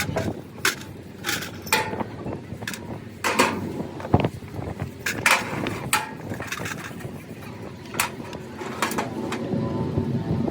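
Scattered metallic clinks and knocks of hand tools and parts being handled during diesel engine repair work, over a low background hum.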